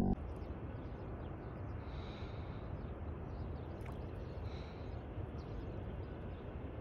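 Steady outdoor noise, mostly wind rumbling on the microphone, with a short knock right at the start.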